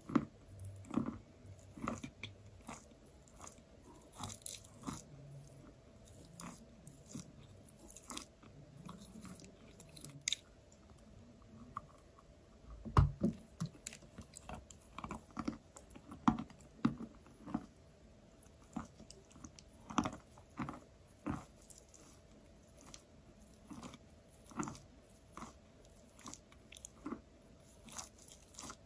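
Close-up bites and chewing of soft, crumbly 'zefir' (marshmallow-type) chalk: an irregular run of sharp crunches and crumbling clicks from the mouth. The loudest crunch comes about 13 seconds in.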